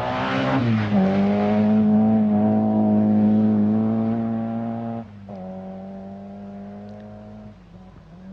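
Volkswagen Golf 16-valve rally car's four-cylinder engine held at high revs as the car passes, its pitch dropping about a second in, then a steady note as it drives away. The level drops sharply about five seconds in and the engine fades out.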